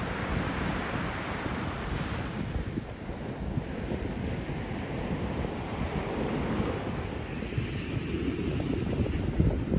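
Wind buffeting the microphone: a gusting, rumbling rush of noise.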